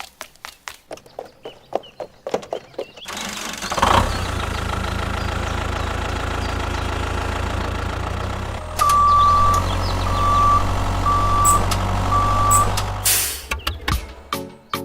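A truck engine idles. About halfway through it gets louder and a reversing alarm beeps four times at one steady pitch. Light clicks and taps come before the engine starts and after it stops.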